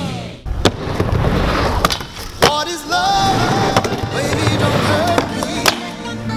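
Skateboard wheels rolling on a wooden mini ramp, with several sharp clacks of the board and trucks hitting the ramp and coping, over rock music.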